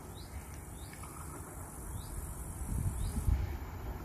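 Insects chirring steadily and high, with a few short bird chirps, over a low rumble of a distant passenger train approaching. The rumble swells about three seconds in.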